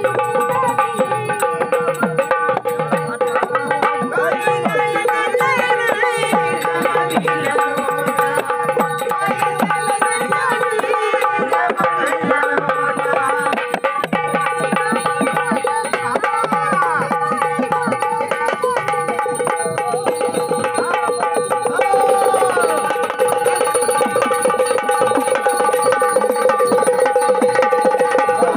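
Traditional Marathi gondhal folk music, instrumental: hand drums beat a dense, fast rhythm under a steady, held melodic drone.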